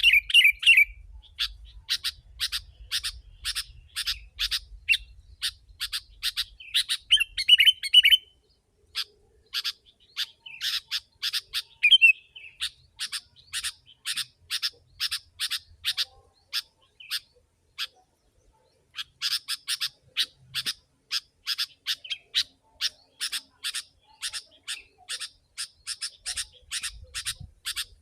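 Sooty-headed bulbul (kutilang) calling rapidly: a dense, even run of sharp chirps, about three to four a second, broken by a few longer warbled phrases and one pause of about a second and a half past the middle.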